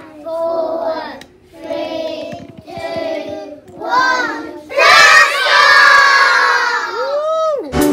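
A class of young children singing a short action song together in four short phrases. Then they shout together loudly for about two seconds, and near the end one voice slides up and back down.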